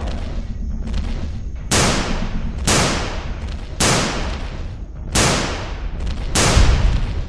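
Gunshot sound effects: about five loud shots roughly a second apart, each dying away, over a steady low rumble.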